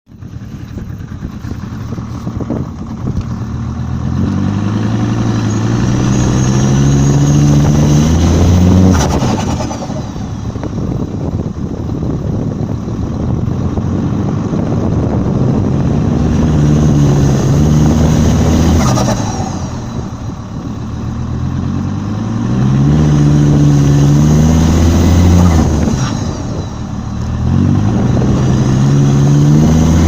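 Volvo V70 2.5 TDI five-cylinder turbodiesel engine accelerating, its pitch climbing, then the throttle lifting off with a short turbo flutter as the revs drop, three times over.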